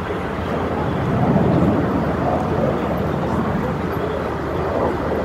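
Russian fighter jet's engines running as a steady, rushing noise while the jet climbs vertically. The noise swells slightly about a second and a half in.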